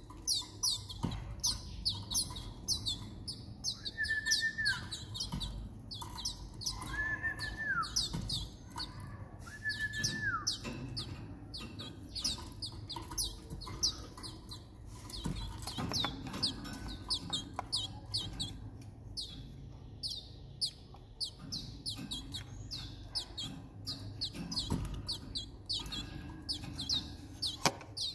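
Young Timbrado canaries cheeping rapidly and continuously in quick, high, falling chirps, the begging calls of chicks being hand-fed. Three short lower whistled notes, each dropping off at its end, come in the first half.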